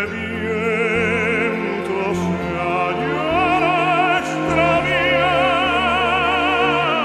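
Background music: an operatic voice sings sustained notes with a wide, even vibrato over an instrumental accompaniment.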